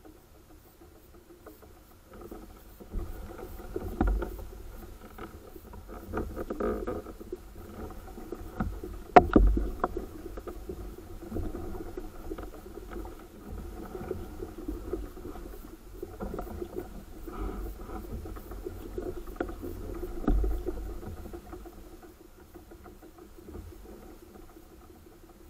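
Water sloshing and lapping against a sit-on-top fishing kayak's hull, with a few hollow knocks and thumps against the boat, the loudest about nine seconds in.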